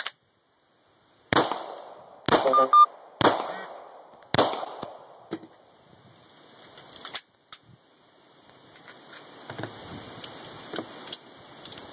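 Glock 22 pistol in .40 S&W fired four times, about a second apart, each shot sharp with a short echo. Near the end, light metallic clicks and rattles as the pistol is handled and taken apart.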